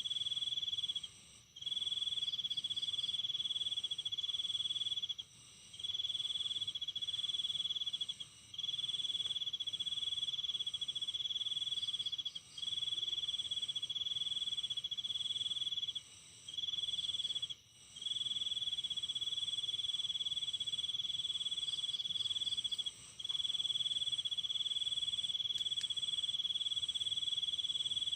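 Insects trilling in a steady high-pitched drone that runs for a few seconds at a time, with brief breaks every two to four seconds.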